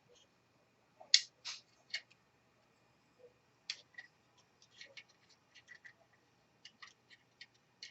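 Irregular light clicks and taps of a screwdriver, small screws and plastic laptop parts being handled during reassembly. The loudest click comes about a second in, and smaller ones follow in clusters.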